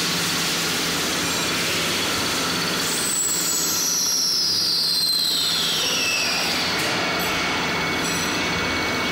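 CNC lathe with a bar feeder running with a steady mechanical noise. About three seconds in, a high whine comes in and slides steadily down in pitch for about three and a half seconds.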